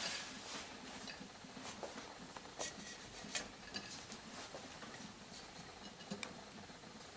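Faint, scattered small taps and clicks of grapes being handled and dropped into a juicer's feed tube.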